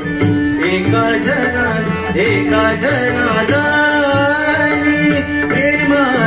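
Live devotional bhajan (abhang): a man singing a melody with gliding, ornamented notes over a harmonium holding a steady note, with tabla playing a regular beat underneath.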